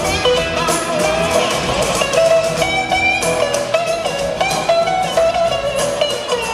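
Live blues-rock band in an instrumental break, led by a guitar whose notes glide and bend between pitches.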